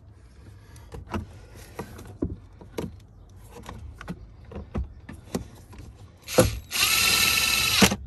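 Light clicks and knocks of plastic trim being handled, then a power drill-driver runs steadily for just over a second near the end and stops, driving one of the bottom screws back into the plastic glove-box trim.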